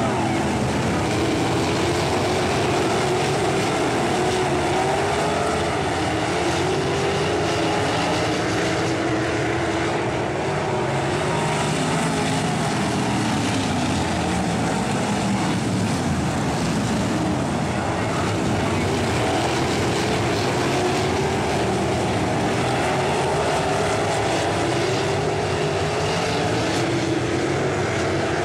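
A pack of sprint cars' V8 engines racing on a dirt oval. Several engines overlap, each rising and falling in pitch as the cars go around the track.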